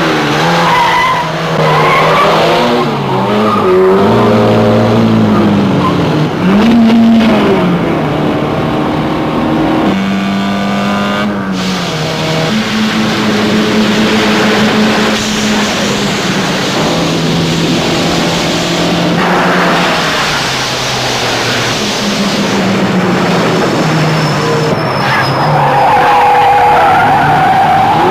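Car engines revving hard, the pitch climbing and dropping again and again through gear changes, while tyres squeal and skid. A long high tyre screech comes near the end.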